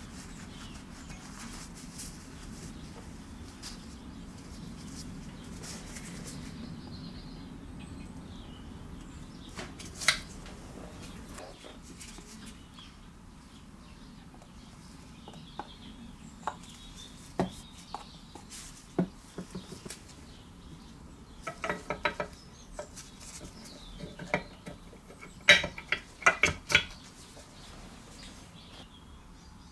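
Soft rubbing of a cloth wiping the inside of a small aluminium engine crankcase. Then a series of sharp metal clinks and knocks, bunched near the end, as the camshaft and its gear are fitted into the crankcase and meshed with the crankshaft gear.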